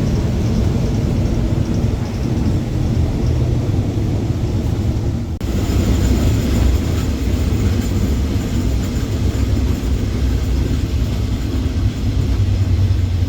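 Running noise inside a moving passenger train carriage: a steady, loud rumble of the wheels on the rails. There is a short break in the sound about five seconds in.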